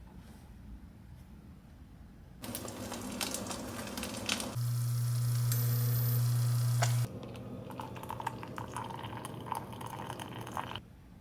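Clatter and clicks, then a small electric machine humming steadily for about two and a half seconds, then more liquid-like noise and clicks that stop shortly before the end.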